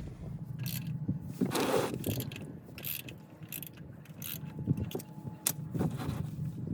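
Hand tools at work: scattered metal clicks and knocks, like a ratchet and wrench being handled, with a scrape about a second and a half in.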